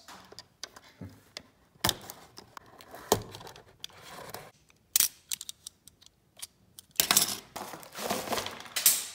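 Utility knife slitting the seal on a cardboard box: a series of sharp clicks and scrapes, followed about seven seconds in by a denser stretch of crackling as the cardboard box top is pried open.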